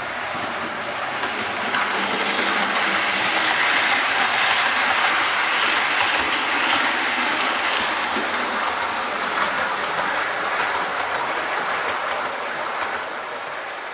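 Hornby Railroad LNER P2 model locomotive and four teak coaches running past on 00 gauge track. The steady rolling noise of the model's wheels on the rails swells as the train nears, peaks midway, then fades as it passes.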